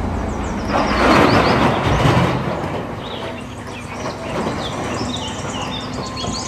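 Large wheel loader's diesel engine running as it tips its bucket into a dump truck; the load pours into the steel bed with a loud rushing rumble from about a second in, easing off after two or three seconds. Birds chirp in the background.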